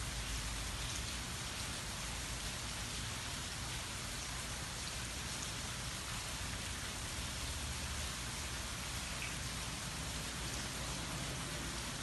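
Steady light rain falling on trees and grass, an even hiss with no thunder.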